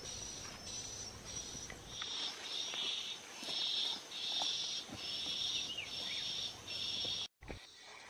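Insects buzzing in a steady chorus that swells and fades in regular pulses, about two a second. The chorus cuts off abruptly near the end.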